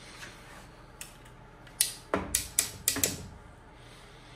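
A quick series of sharp clicks and knocks, about six in just over a second, as a yellow cordless work light is set down on the truck's rear bumper.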